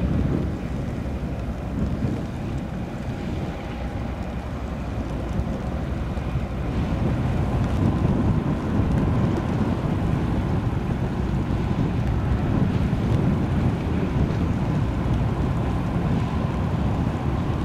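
Low, steady rumble of a tugboat's engine working against a cargo ship's hull, mixed with wind buffeting the microphone; it grows louder about seven seconds in.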